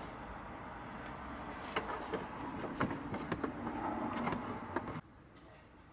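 Small plastic clicks and knocks as a bulb holder is worked into a car's tail-light housing, over a steady hiss that drops away near the end.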